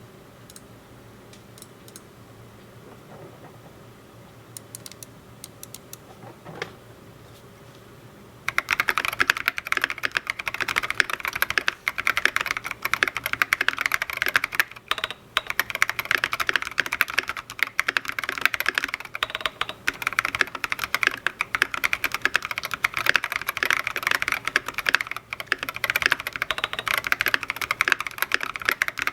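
KBD8X MKII mechanical keyboard, with a polycarbonate case, brass plate, lubed 68 g Holy Boba switches and SA-profile keycaps, being typed on. A few scattered key presses give way, under a third of the way in, to fast, continuous typing.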